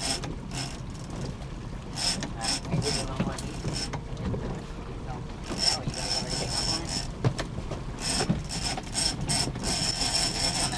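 Big-game fishing reel ratcheting and whirring in short, uneven bursts as line is worked against a hooked bluefin tuna, with a high ringing note held for about a second a couple of times.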